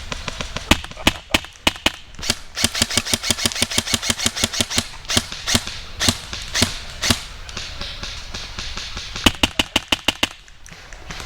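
Airsoft guns firing: rapid single shots, about nine a second through the middle, with scattered shots and a quick burst of about half a dozen near the end.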